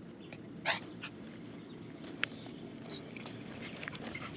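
Faint footsteps and rustling on a dirt trail as a person walks a small dog on a leash, with a few light clicks; the sound grows a little louder near the end as they start moving faster.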